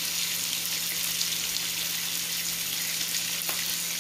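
Pancake batter sizzling in hot oil in a cast-iron skillet: a steady frying hiss, with a faint low hum underneath.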